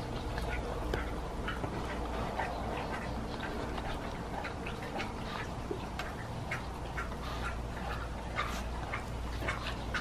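A small puppy chewing and mouthing a piece of raw pork, with irregular smacking and clicks of teeth.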